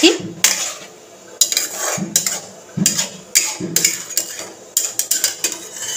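A spatula stirring cauliflower florets in gravy in a kadai: a string of irregular scrapes and clinks of the spatula against the pan, about one every half second.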